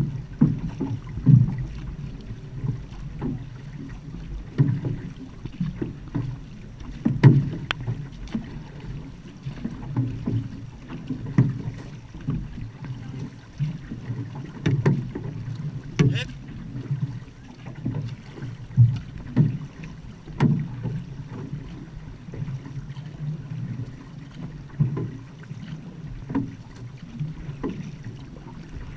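Outrigger canoe (va'a) under paddle: water rushing along the hull, with a splash or knock from the paddle strokes every second or so.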